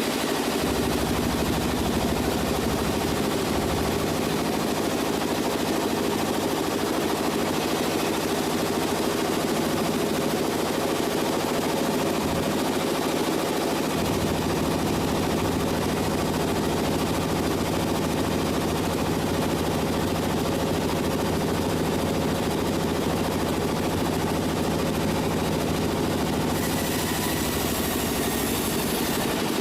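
Sawmill machinery running steadily, with a fast, even rattle over a steady mechanical hum; the low rumble gets heavier about halfway through.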